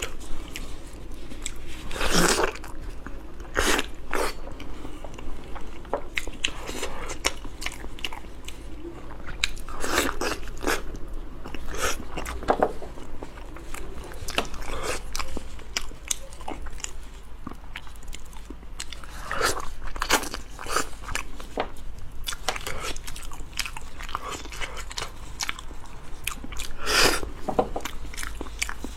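A person eating close to the microphone: biting and chewing, broken by sharp crunches scattered throughout, several of them loud.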